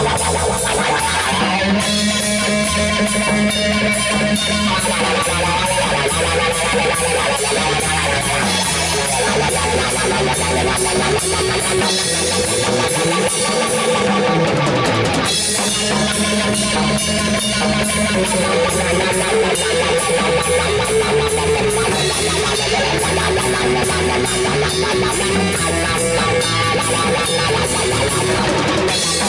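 Live rock band playing: electric guitar and electric bass over a Pearl drum kit, with a steady beat and cymbals.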